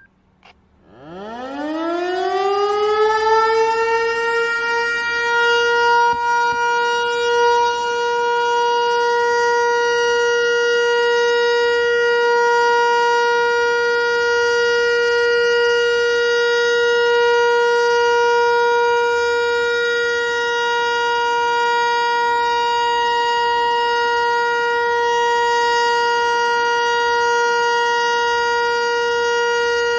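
ASC T-121 outdoor warning siren starting up about a second in, its pitch rising over about three seconds, then holding one steady tone: the steady Alert signal of a siren test.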